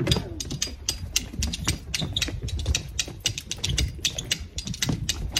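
Quick, irregular taps and scuffs of several dancers' trainers stepping on a wooden deck, many per second.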